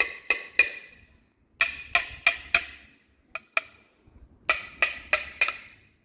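Metal oil pickup tube struck with a series of sharp taps, each with a short metallic ring, in quick groups of two to four, about three a second. The taps bend the tube down and away from its strainer screen so the screen is no longer blocked.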